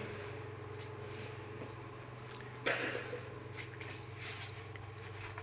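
A steady low hum with faint, short high-pitched chirps repeating at a regular pace. A brief rustle or scrape comes about two and a half seconds in, and another shorter one about four seconds in.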